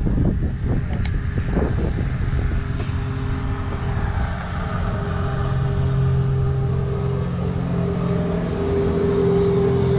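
An engine droning steadily, growing louder in the second half, with wind buffeting the microphone in the first couple of seconds.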